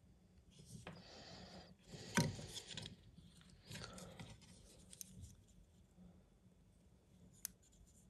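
Faint rubbing and scraping handling noises in short bursts, with a few sharp clicks, the loudest about two seconds in, as a soldering iron is worked against a small circuit board.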